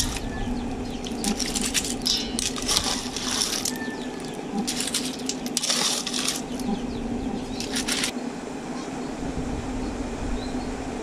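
Cooked freshwater clams being ladled from a pot into a stainless steel bowl: the shells clink and rattle against each other and the metal in several short bursts, the last about eight seconds in.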